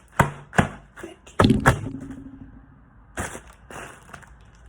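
Handling of an iPhone box and its packaging: a series of sharp knocks and taps, about five in the first two seconds and two more a little after three seconds.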